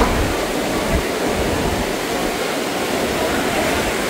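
Heavy tropical downpour: a steady, dense hiss of pouring rain, with two brief low thumps, one at the very start and one about a second in.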